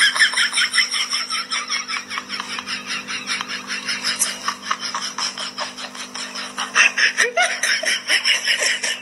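A person laughing hard and without a break, in quick breathy pulses of about five a second, over a faint steady hum.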